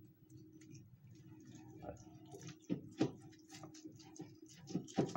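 Irregular clicks and taps of a dull kitchen knife cutting a raw chuck roast on a plate, with a louder knock about three seconds in and another near the end, over a faint steady hum.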